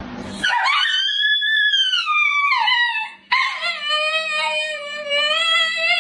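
A dog howling: two long calls, the first rising and then falling in pitch, the second held level at a lower pitch.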